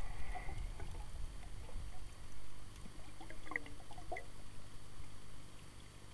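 Muffled low water noise picked up by a Rollei camera held underwater, churning unevenly and easing off toward the end, with a few faint short squeaks a little past the middle.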